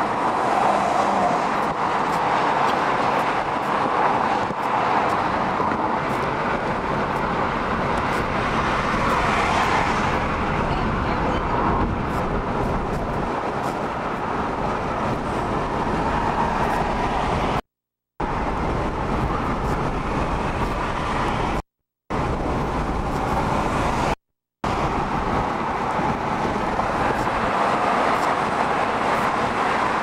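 Steady road and wind noise of a moving car, an even rush with no clear engine note. It is broken by three brief silent gaps in the second half.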